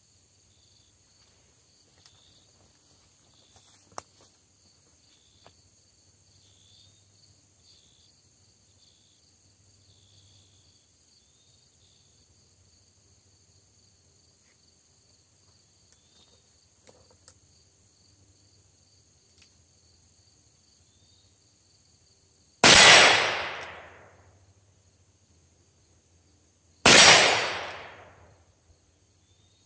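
High Standard Longhorn Convertible revolver firing .22 Magnum rounds: two sharp shots near the end, about four seconds apart, each ringing out and fading over about a second and a half. Before them, a steady high drone of crickets and a few faint clicks.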